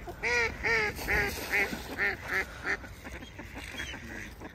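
Waterfowl calling on a pond: a quick run of about eight calls, roughly three a second, growing weaker, followed by fainter calls.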